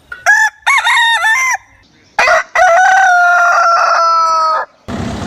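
Rooster crowing twice: a shorter broken crow, then a long crow whose last note is held and sinks slightly in pitch. A burst of noise comes in near the end.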